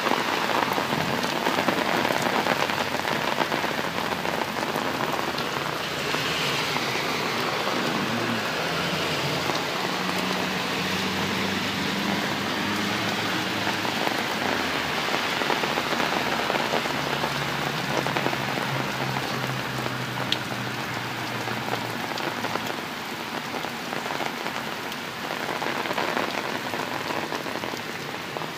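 Heavy rain falling steadily on an umbrella overhead and on the wet pavement and road. Cars pass on the flooded road, their low drone coming up in the middle stretch.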